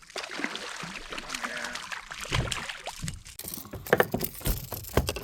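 A hooked largemouth bass thrashing and splashing at the kayak as it is landed, with irregular sharp knocks and rattles that come thicker and louder over the last couple of seconds.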